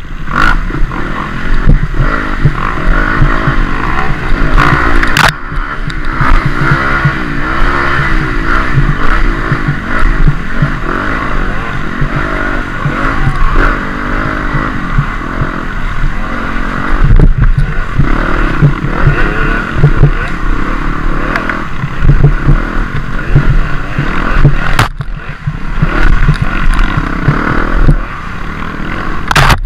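Dirt bike engine ridden hard off-road, its pitch rising and falling with the throttle, over steady clatter and repeated knocks from the bike.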